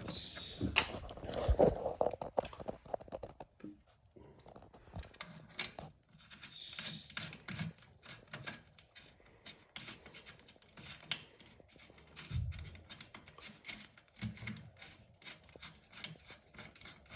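Scattered clicks, rubbing and scraping of plumbing parts being handled as a supply hose is connected between a toilet T-valve and a bidet seat, with a couple of low thumps about two-thirds of the way through.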